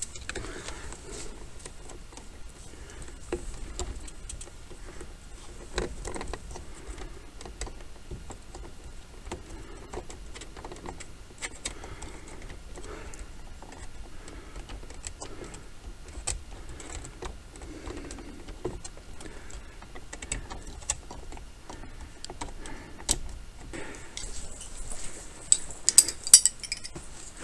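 Light clicks, taps and clinks of hand tools and small metal parts being handled, scattered at irregular intervals, with a brief burst of louder metallic jingling and clicking near the end.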